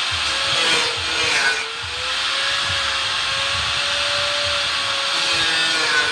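Angle grinder with a cut-off disc cutting through a metal rectangular tube: a steady motor whine over the harsh hiss of the disc grinding the metal. The pitch dips briefly a couple of times as the disc is pressed into the cut.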